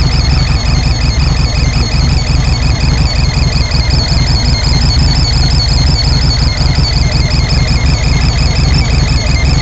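Air-cooled VW flat-four engine idling steadily, with a high-pitched chirp repeating rapidly and evenly over the engine note: the abnormal noise being tracked down.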